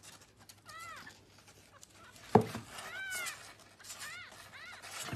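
Very young kitten mewing in short, high calls that rise and fall, several times over. A single sharp knock sounds about two seconds in and is the loudest thing heard.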